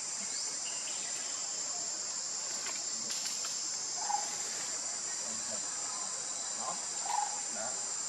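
Steady high-pitched insect chorus, like crickets, with a few short calls standing out briefly about four and seven seconds in.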